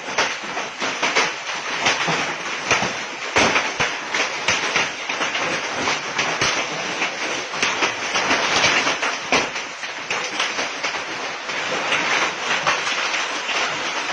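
Heavy hail with rain: a dense, irregular clatter of many hailstones striking a hard surface over a constant hiss of rainfall.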